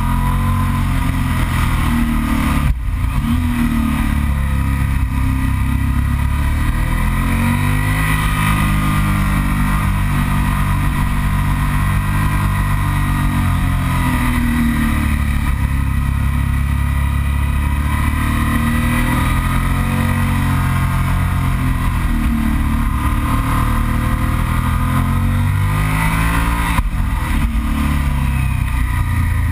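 Yamaha TDM 900's parallel-twin engine under way through a run of bends, its note rising and falling repeatedly as the throttle is opened and rolled off, with a brief break in the note about three seconds in and again near the end. Steady wind noise rushes over the camera.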